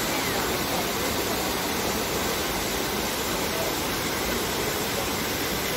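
Trevi Fountain's water cascading over the rocks into the basin in a steady rush, with faint crowd voices underneath.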